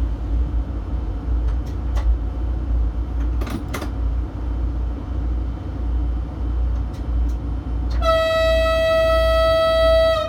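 Train cab rumbling steadily as it rolls along the track, with a few sharp clicks. About eight seconds in, the train's small horn sounds one steady high note for over two seconds as a warning to a moose on the track; it is weak because the larger horn is frozen solid with snow and ice.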